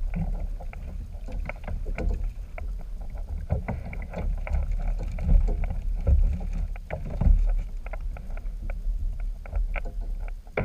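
Splashing from a hooked redfish thrashing at the surface beside a kayak, with water slapping the hull and irregular clicks and knocks. A strong, swelling low rumble of wind on the microphone runs underneath.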